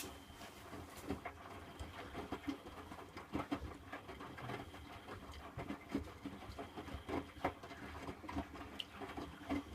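Miele WDA110 washing machine drum turning wet laundry during the wash, with irregular soft knocks and swishes over a steady low hum.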